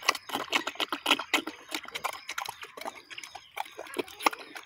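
A sow eating from a wooden feed trough: quick, irregular chewing smacks and snout knocks, several a second.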